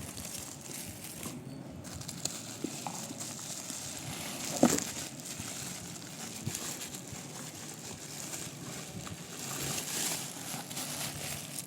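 Rustling and light clicks from handling product packaging, with one sharper knock, like a container set down, just under five seconds in.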